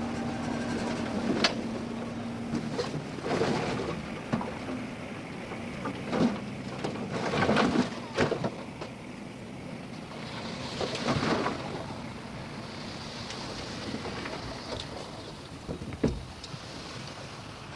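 Heavy diesel earthmoving machinery working: a steady engine hum that fades out about two and a half seconds in, then scattered knocks and clanks, with a hiss twice in the second half.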